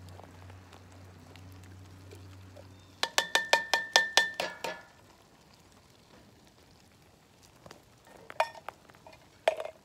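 A can of mixed chili beans being knocked empty into a cast-iron Dutch oven: a quick run of about ten ringing metal clanks in under two seconds, then a few softer knocks near the end. A low steady hum sounds under the first three seconds and then stops.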